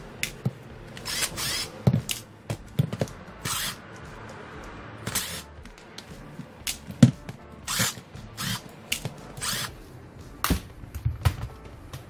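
Irregular clicks, knocks and short scrapes of a cordless hammer drill's plastic housing being unscrewed and pried apart by hand, with a screwdriver and parts handled and set down on the bench.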